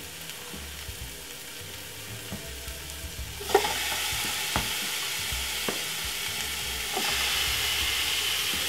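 Chopped onion, spring onion, garlic and thyme sizzling gently in hot oil in a pot. About three and a half seconds in, marinated curry chicken goes in with a knock and the sizzling gets much louder, with a few more knocks as more pieces go in and another rise in the sizzle near the end.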